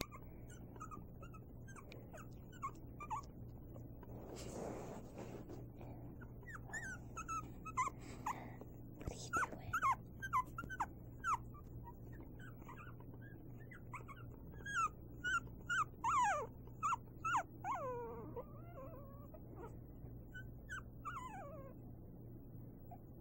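Young puppies whimpering and squeaking: many short, high-pitched cries that drop in pitch, coming in clusters and thickest in the middle stretch.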